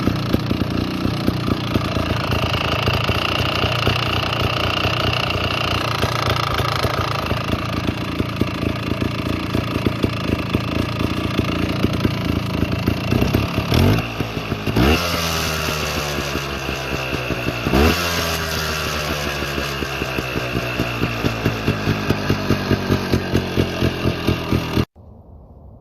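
1998 Beta Techno two-stroke trials motorcycle engine idling, blipped up in revs and back down twice about halfway through. The sound cuts off sharply a second before the end.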